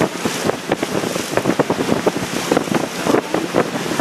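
Sightseeing boat under way on a lake: water splashing and rushing along the hull in a dense, irregular crackle, with wind buffeting the microphone.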